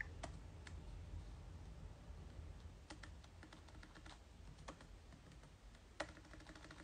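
Faint, irregular light clicks of typing over a low steady hum, with one slightly sharper click about six seconds in.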